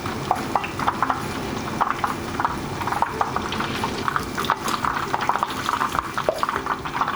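Deep-frying oil sizzling around thick blocks of tofu, with many irregular sharp pops and crackles over a steady hiss.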